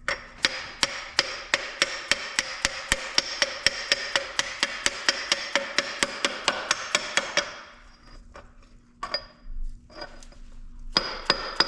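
Steady, rapid hammer taps on a metal seal installer tool, about four a second with a metallic ring, driving the rear crankshaft seal onto a Detroit Diesel 2-53. The run stops at about seven and a half seconds, and a few single taps follow later.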